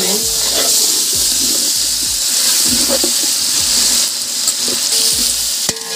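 Onions and whole spices frying in hot oil in a large metal pot, sizzling loudly as chopped tomatoes are tipped in, with a ladle scraping and stirring against the pot.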